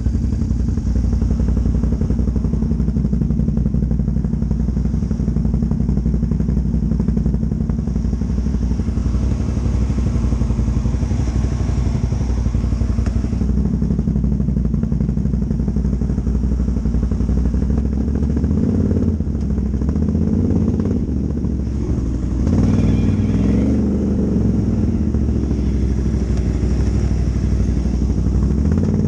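Can-Am ATV's V-twin engine running at trail speed, its note rising and falling a few times past the middle as the throttle is worked.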